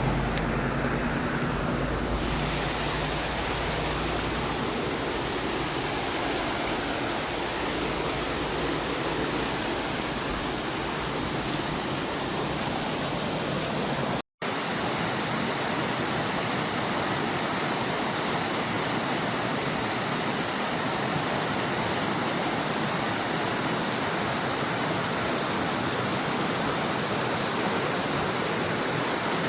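Steady rush of fast-flowing water in a mountain stream, a continuous even hiss, with a brief break about halfway through.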